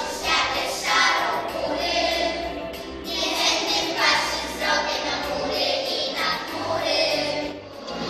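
Children's choir singing in unison, in phrases of a second or two.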